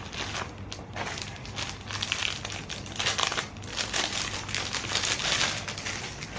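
Packaging crinkling and rustling in irregular bursts as a wrapped shawl is unwrapped by hand.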